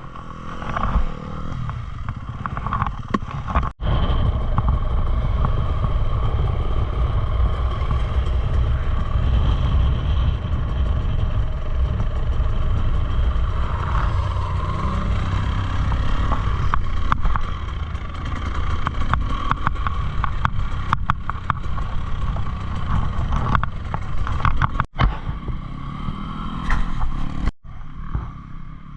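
Dirt bike being ridden along a trail, its engine running on and off the throttle over a heavy low rumble, with frequent clatter from the bike over rough ground.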